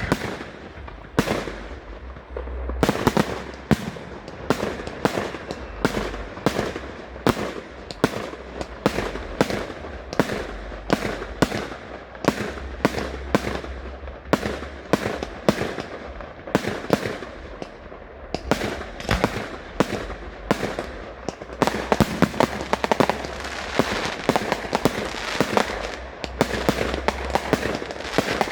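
A fireworks display going off: a rapid, continuous run of bangs and booms, several a second, growing denser and more crackling in the last several seconds.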